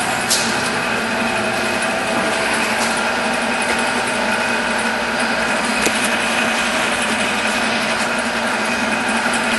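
Monarch 10EE tool room lathe running steadily under power, a constant machine whine made of several steady tones over a mechanical hum, with a couple of short clicks.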